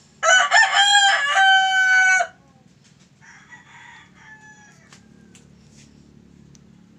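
Rooster crowing: one loud crow of about two seconds whose pitch steps up and then holds before it cuts off. A fainter crow follows about a second later.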